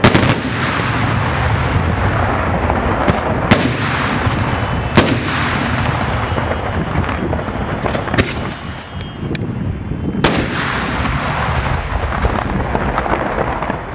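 Aerial firework shells bursting: a string of sharp, loud bangs at irregular intervals, the strongest at the very start, around five seconds in and about ten seconds in, over a continuous rumble of further explosions.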